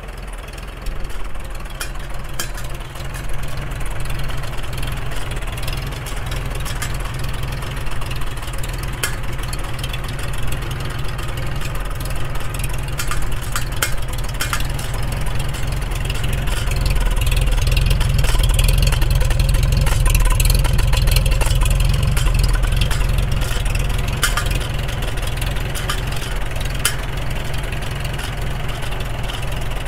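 1942 Farmall H's four-cylinder gasoline engine running at idle after starting, growing louder for several seconds past the middle before settling back. With its Super H carburetor it runs a little rich at idle.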